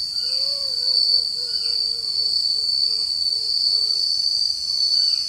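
Night insect chorus in tropical forest: a steady, unbroken high-pitched trill.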